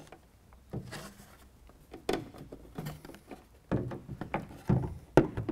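Plastic pickup taillight assembly being handled as its wiring is reconnected and it is fitted back into the bed pillar: scattered light knocks and rubs, with a sharp click near the end.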